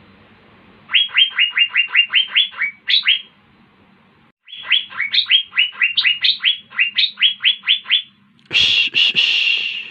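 Asian fairy-bluebird (cucak biru) singing: two rapid runs of sharp down-slurred notes, about eight a second, with a short pause between them, then a harsh buzzy call near the end.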